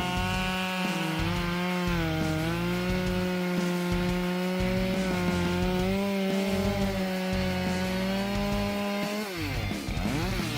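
Chainsaw engine running at high revs while cutting wood, its pitch holding mostly steady with small dips. Near the end the revs drop sharply and climb back up.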